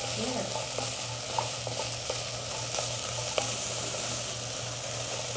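Chopped vegetables sizzling in an enamelled pot while a wooden spoon stirs them, with a few light taps of the spoon against the pot. A steady low hum runs underneath.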